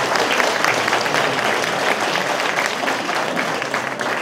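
Audience applauding, many hands clapping steadily, easing slightly toward the end.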